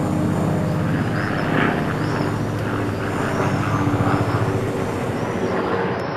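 An engine running steadily: a low drone with a fast, even pulsing beat.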